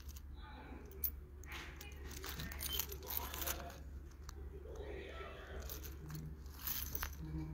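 Faint rustling and scattered small clicks from a hand-held phone being handled, over a steady low hum of room tone.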